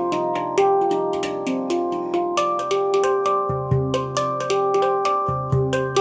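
Instrumental music: a series of pitched, ringing notes over a repeating ticking beat.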